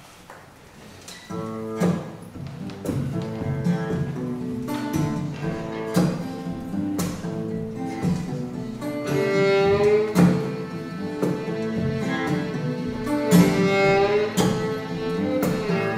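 Fiddle and acoustic guitar playing a song's instrumental intro. The guitar comes in with strummed chords about a second in, and the fiddle plays long bowed notes over it, climbing to higher notes twice in the second half.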